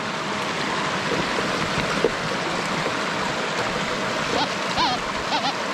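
Steady rushing of a creek, and from about four seconds in, short warbling tones from a Goldmaster 24k metal detector's audio responding to a target under the coil.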